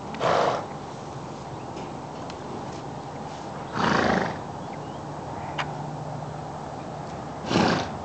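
Morgan horse blowing air out through its nostrils: three short, noisy breaths of about half a second each, one near the start, one in the middle and one near the end.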